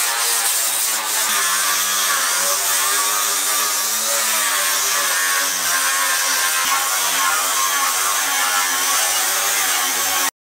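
Angle grinder with an abrasive disc grinding paint off a painted steel sheet, down to bare metal. It runs steadily with the motor's pitch wavering slightly under load, then cuts off suddenly near the end.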